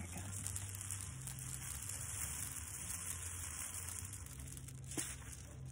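Homemade rain stick made of taped paper towel tubes filled with rice and aluminum foil balls, held upright so the rice trickles down through the foil: a steady soft rushing like rain. A single light knock about five seconds in.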